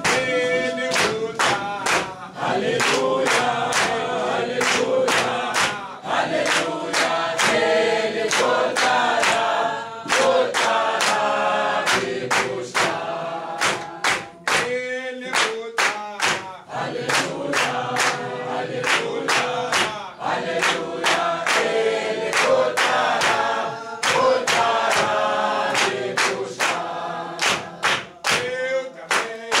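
A church congregation singing a hymn together, many voices at once, with hand-clapping keeping a steady beat.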